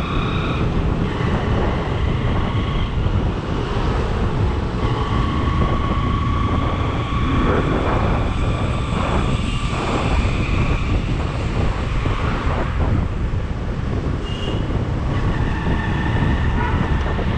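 Wind buffeting the microphone over a motorcycle engine running on the move, with a thin whine holding steady above it.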